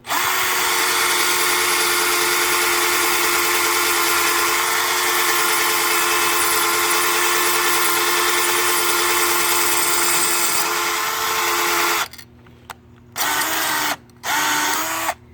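Power drill running steadily, a 3/16-inch glass-and-tile bit grinding into ceramic tile, for about twelve seconds, then stopping. Two short spins of the drill follow near the end.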